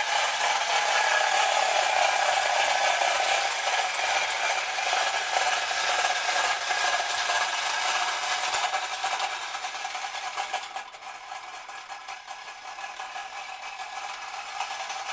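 Clockwork wind-up motor of a tin-litho Marx Moon Scout toy helicopter running, a steady mechanical sound that drops much quieter about ten seconds in as the spring runs down.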